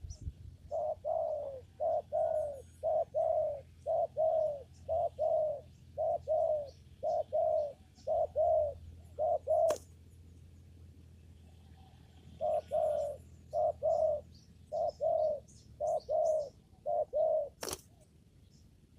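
Spotted dove cooing in a long run of short notes, pausing for about three seconds, then cooing again. A sharp click comes just after the first run and another near the end, with faint high chirps of small birds behind.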